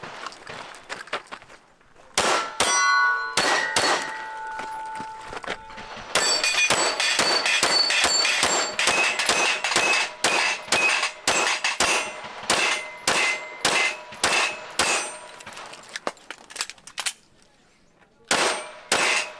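Strings of rapid pistol shots, about two a second at their fastest, with steel targets ringing as they are hit. There is a short pause near the end, then a few more shots.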